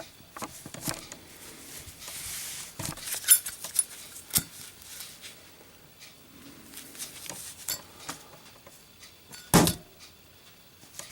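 A Zippo lighter in a drop test: scattered metallic clicks and clinks as it is handled, then a loud clunk near the end as it lands on a hard surface.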